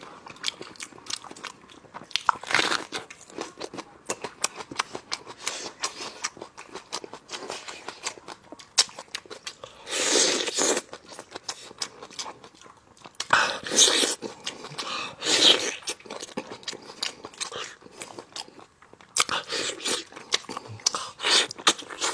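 Close-miked chewing and crunching of meat from spicy lamb leg bones: a dense run of small wet crunches, with a few louder bites about 10 seconds in, twice around 14 to 15 seconds, and again near the end.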